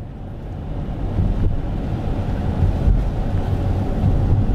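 Car driving on a wet road, heard from inside the cabin: a steady low rumble of engine and road noise with wind buffeting the microphone, building up over the first second.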